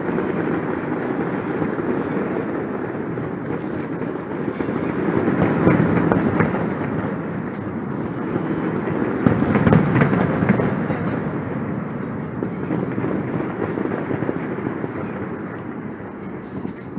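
A distant fireworks display, out of sight behind buildings: a continuous rolling rumble of bursts that swells twice, about five and ten seconds in.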